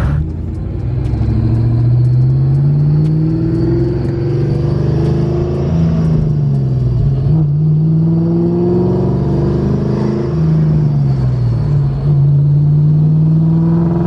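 Ford 4.6 modular V8 under way, heard from inside the cabin, its note climbing and dropping several times as the car accelerates and eases off. It is still misfiring slightly, which the owner puts down to a bad ignition coil.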